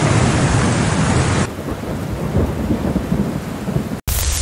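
Loud, storm-like rushing and rumbling noise of heavy seas. It changes to a quieter, duller rumble about a second and a half in, then cuts off abruptly near the end.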